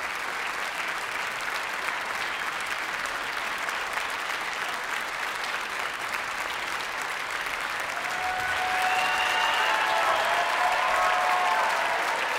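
Concert-hall audience and orchestra applauding steadily. About eight seconds in the applause grows louder, and cheering voices call out over the clapping.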